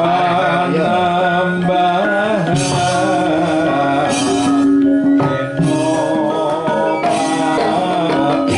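Javanese gamelan ensemble playing, with kendang hand-drumming and a voice singing over it.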